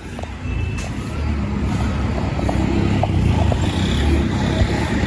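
Steady low rumble of a passing vehicle, growing slightly louder, with a few faint clicks.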